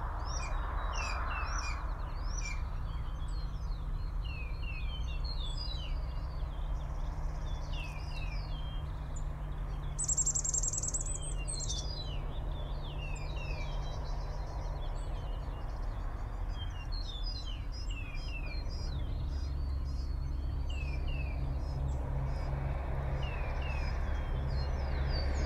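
Small songbirds chirping and singing throughout: many short, quick, falling notes, with one brief high buzzy note about ten seconds in. A steady low hum runs underneath.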